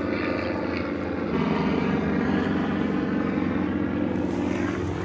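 A steady engine drone with several pitched tones layered together, whose pitch shifts slightly about a second and a half in.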